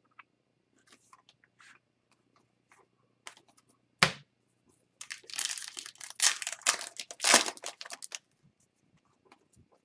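Foil wrapper of a hockey card pack being torn open and crinkled for about three seconds, after one sharp snap about four seconds in; a few light taps of card handling come before.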